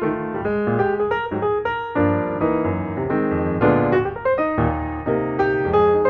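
Background music: a piano playing a light melody over chords, with a note or chord struck several times a second.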